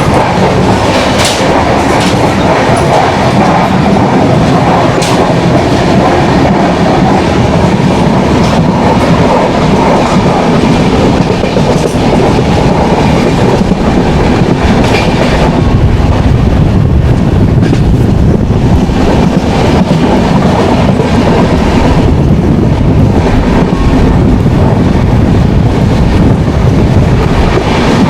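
Passenger train running along the track: a steady loud rumble of the wheels on the rails, with scattered sharp clicks from rail joints.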